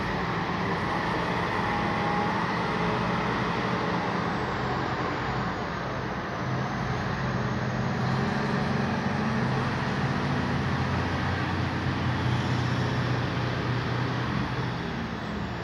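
Diesel engine of an International 9400i semi tractor running as the loaded tractor-trailer drives past, a steady engine drone over tyre and road noise.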